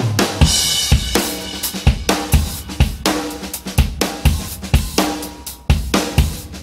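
Intro music driven by a drum kit: a steady beat of kick drum, snare and cymbals, about two beats a second.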